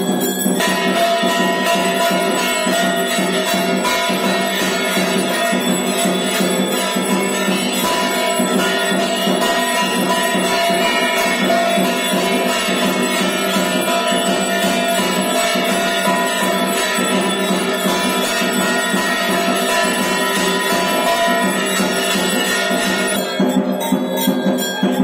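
Temple bells and percussion ringing in a dense, unbroken clangour for the evening aarti, the lamp-waving worship. The highest ringing thins out near the end.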